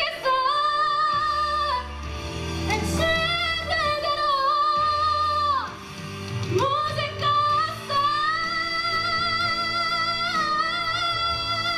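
A woman singing solo over backing music, holding long notes with vibrato; after a short break about six seconds in she rises into a long held note that lasts to the end.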